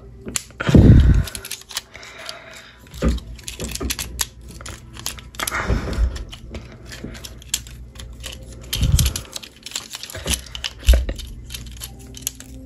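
Hard plastic parts of a Transformers action figure clicking and snapping as they are moved and fitted together by hand during transformation, with a few dull low thumps, the loudest about a second in.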